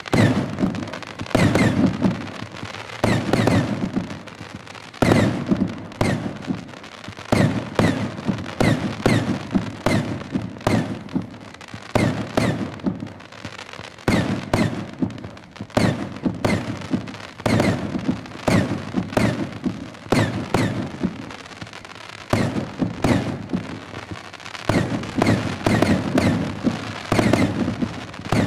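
Hands Fireworks 'Blizzard' 49-shot 32 mm straight cake firing: rapid shots of crackling tracers, each ending in a sharp report. Loud bangs come about once a second, with dense crackling between them.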